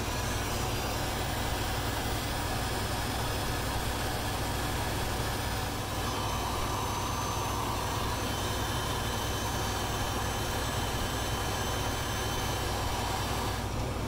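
Handheld heat gun blowing steadily, its fan and hot-air hiss shrinking heat-shrink tubing over a wire splice; it shuts off just before the end.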